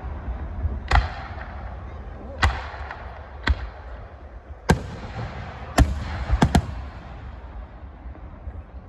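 Fireworks going off: seven sharp bangs at irregular intervals, the last two in quick succession, over a noisy wash that fades away near the end.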